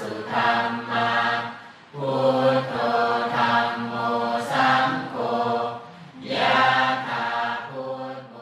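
Voices chanting a Buddhist chant together on a near-monotone pitch, in phrases with short breaks about two seconds and six seconds in; the chant trails off near the end.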